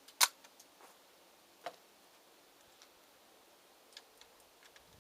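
Sharp crack of a rifle shot just after the start, then a fainter shot about a second and a half later and a few faint clicks.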